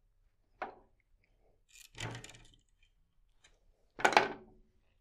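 Clicks and knocks from a racquet stringing machine's clamps and tensioner head as the string is clamped and pulled. A single sharp click comes about half a second in, a short clatter about two seconds in, and the loudest knock about four seconds in.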